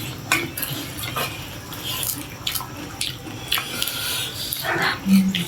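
Close-up eating sounds of pani puri: crisp puri shells crunching and the spiced water being slurped, in a string of short crackles and wet smacks. A brief low hum is heard near the end.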